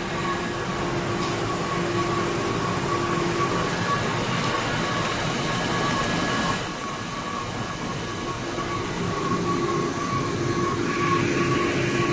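Label-printing machinery running steadily, with the waste-matrix suction system drawing trimmed label waste through a hose into a collection bin. It makes a constant hum with a steady whine, a little quieter just past halfway and hissier near the end.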